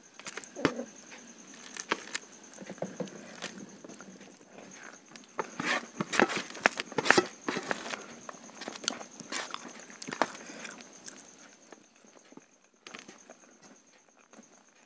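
Fingers squishing and mixing soft mashed food on a steel plate, with chewing mouth sounds: a run of quick wet clicks and squelches, busiest in the middle.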